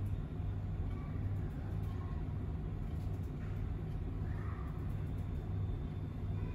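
Steady low background hum, with a few faint brief sounds in the middle.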